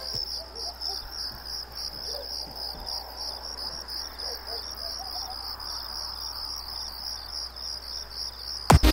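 Crickets chirping in a steady, pulsing trill, the usual sound of night, over a faint low hum. Loud electronic music cuts in right at the end.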